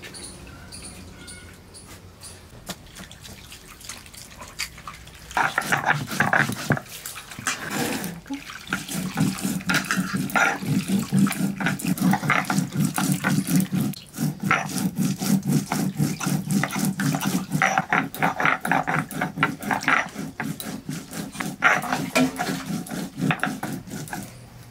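Mustard seeds being ground on a sil-nora, a flat grinding stone with a stone roller. The roller is worked back and forth with a rhythmic, gritty scraping that starts about five seconds in.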